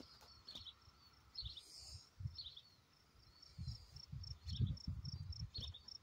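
Faint crickets chirping in a regular high-pitched rhythm, with wind rumbling on the microphone, stronger in the second half.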